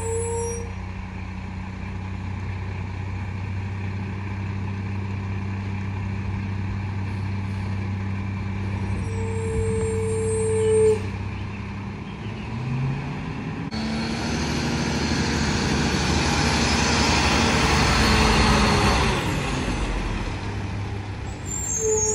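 Mack MRU garbage truck's diesel engine idling with a steady low hum and a brief squeal about nine seconds in. About twelve seconds in the engine revs up and runs louder for some six seconds under a broad hiss, then drops back.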